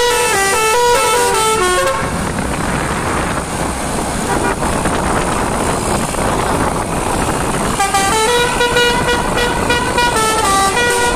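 Telolet basuri multi-tone air horn playing a quick stepping melody for about two seconds, then, after several seconds of broad rushing noise without tones, starting the melody again in the last few seconds.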